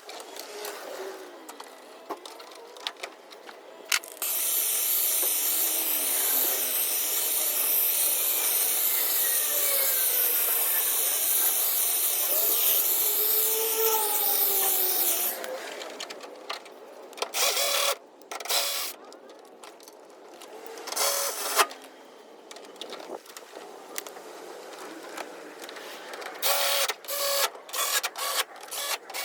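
A small electric tool running steadily for about eleven seconds, then cutting off, with scattered clicks and taps before and after it.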